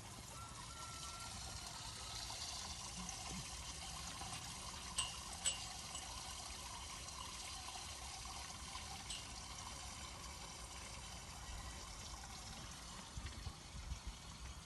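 Water running with a steady trickling sound, with a few sharp clicks over it: two about five seconds in and one near nine seconds.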